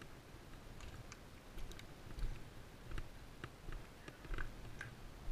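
Soft footstep thumps, about one a second, with scattered light clicks and ticks from a player's gear.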